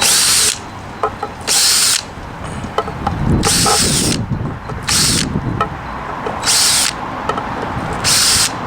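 Hart cordless drill run in short trigger pulses, about six bursts of half a second each, roughly 1.5 s apart, driving a screw into wood.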